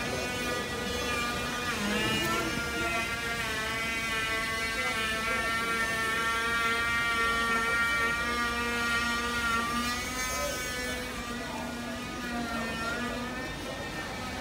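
Diesel engine of a train running with a steady droning tone, its pitch dipping briefly about two seconds in and shifting again near the end.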